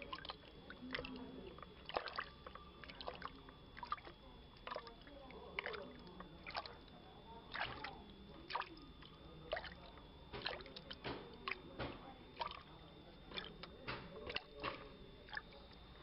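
Water sloshing and lapping against a small boat, with irregular sharp knocks and splashes, one or two a second.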